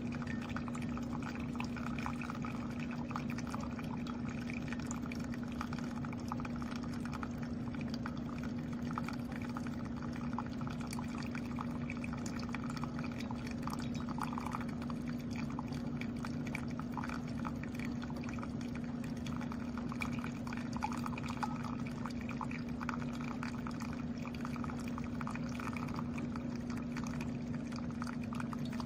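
Keurig K-Slim single-serve coffee maker brewing: a steady pump hum with liquid streaming and pouring continuously.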